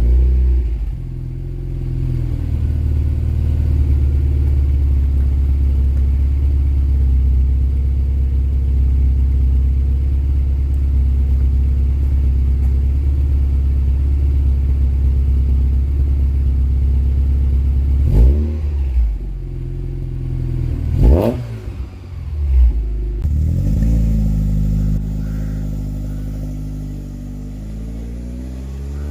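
VW Mk2 Golf GTI 16v four-cylinder engine running at steady revs. About 18 and 21 seconds in come two quick revs that rise sharply and fall away. Near the end the revs build again.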